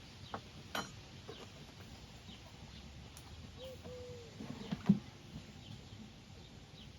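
Chickens clucking, with short calls over faint chirps from small birds. A few clicks sound near the start, and a sharp knock comes about five seconds in, the loudest sound here.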